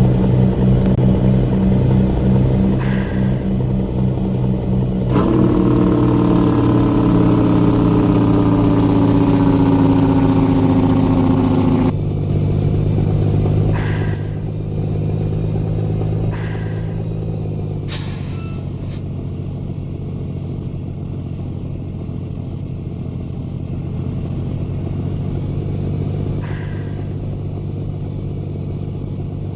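Truck engine running steadily. About five seconds in, a louder tone joins it and slowly falls in pitch for about seven seconds, then cuts off. A few short knocks are scattered through.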